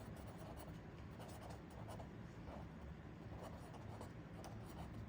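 Faint scratching of handwriting: short, irregular pen strokes.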